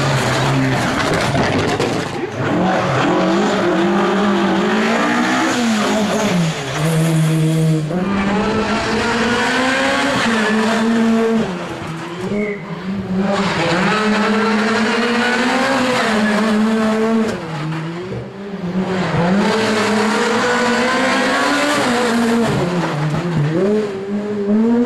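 Rally cars driven hard one after another, among them a Mitsubishi Lancer Evolution X and a Ford Fiesta: engines revving high, the note climbing and dropping through gear changes, with brief lulls between passes.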